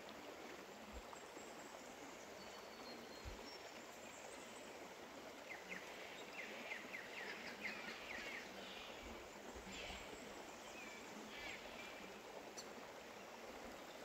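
Shallow river water flowing over granite stones: a low, steady rush. Quick runs of bird chirps sound over it from about the middle, with a few more calls near the end.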